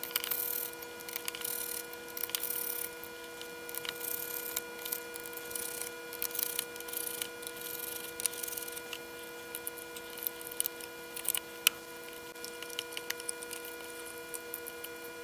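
Small clicks, taps and scrapes of a screwdriver, plastic casing and circuit board being handled as a handheld oscilloscope-multimeter is taken apart, over a steady faint hum.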